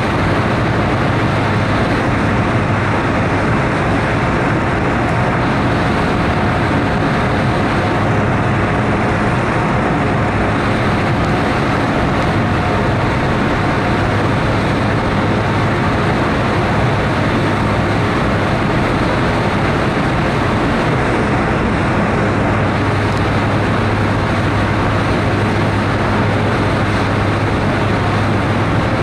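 Ferry underway: a steady low engine hum under a constant, even rushing noise.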